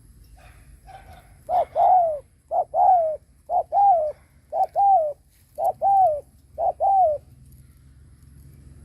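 Spotted dove cooing: a few soft notes, then six loud two-part coos about once a second, each a short note followed by a longer falling one, stopping about seven seconds in. This is the 'gù' display coo of a decoy bird, used to provoke wild male doves.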